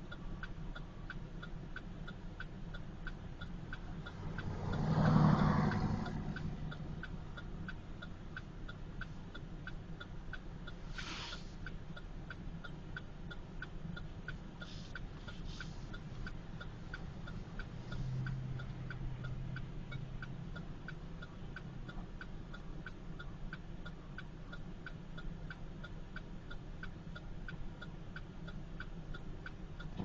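Car interior while driving: steady engine and road rumble with a regular light ticking about twice a second. A louder swell of noise rises and fades about five seconds in, and there is a brief hiss around eleven seconds.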